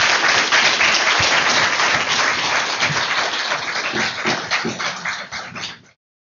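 Audience applauding, with dense clapping that eases a little, then cuts off suddenly near the end.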